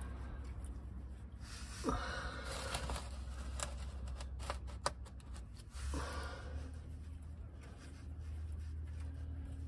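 Faint handling noises as a Triumph Stag's oil filter canister is slowly unscrewed by hand: scraping, and a cluster of light clicks in the middle, with two short rushes of noise about two and six seconds in, over a steady low hum.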